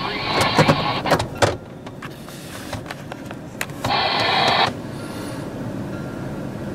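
Car power window motor whirring for under a second, about four seconds in, stopping sharply. A few sharp clicks and knocks come in the first second and a half, over a low steady rumble.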